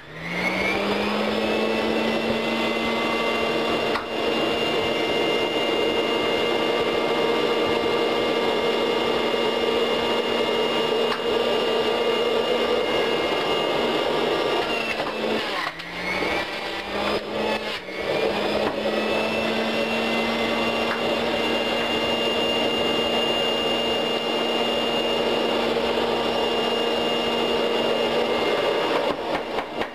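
Breville centrifugal juicer running, a steady motor whine with the grinding of vegetables being shredded. Its pitch sags and climbs back as produce is pushed down the feed chute and loads the motor, once near the start and twice around the middle.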